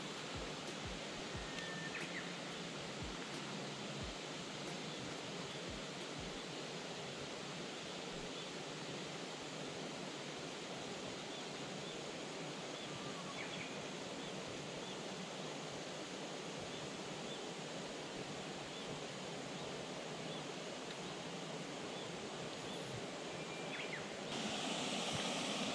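Steady outdoor background hiss of open water and woods, with a few faint short chirps and some soft low knocks in the first few seconds. A louder rushing noise comes in near the end.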